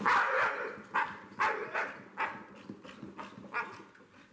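A pit bull giving a run of short barks, several in a row, the first the loudest and the later ones weaker.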